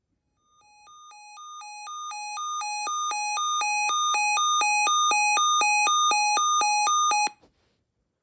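Weather radio alert alarm sounding for an incoming severe thunderstorm watch: rapidly alternating high and low electronic beeps that start faint, grow steadily louder over the first few seconds, then cut off abruptly about seven seconds in.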